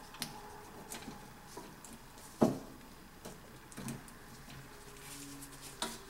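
Gloved hands twisting off plastic wire nuts and pulling apart the float switch's wires: scattered small clicks and rustles, with one louder knock about two and a half seconds in.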